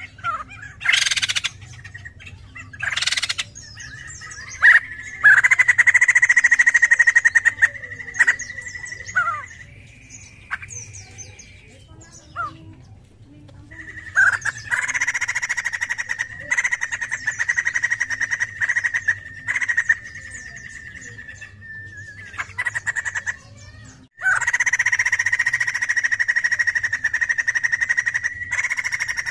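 A poksay jambul laughingthrush singing: long runs of rapid, evenly pitched repeated notes in three main stretches, with short single calls and brief pauses between.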